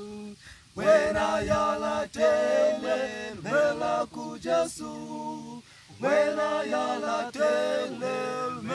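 Male a cappella gospel group singing in harmony, unaccompanied. Two sung phrases, with a short breath-pause between them about two-thirds of the way through.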